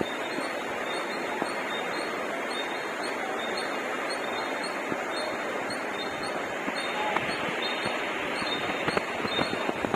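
A train running along the platform: a steady rush of wheel and track noise, with clicks coming more often near the end.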